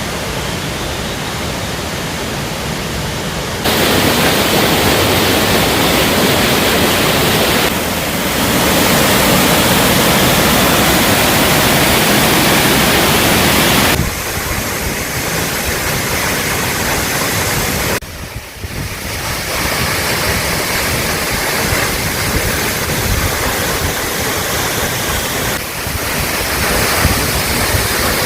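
Waterfall: a steady, loud rush of falling water. The level steps up abruptly about 4 seconds in, drops back about 14 seconds in, and dips briefly around 18 seconds.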